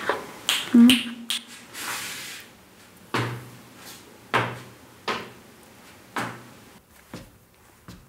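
Foley performed in a real bathroom: a quick run of knocks and clatters with a short ringing clank about a second in, then slow steps about one a second, each with a low thud.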